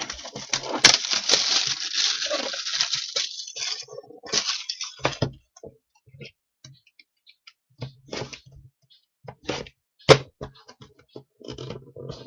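Trading-card pack wrapper being torn open and crinkled for about four seconds, then scattered soft clicks and rustles of cards being handled.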